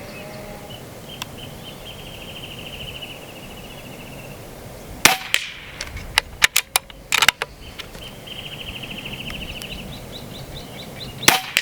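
Crosman Benjamin Marauder .22 PCP air pistol firing, sharp cracks at about five, seven and eleven seconds in, with smaller clicks between the first two. A high, rapid trill sounds twice in the background.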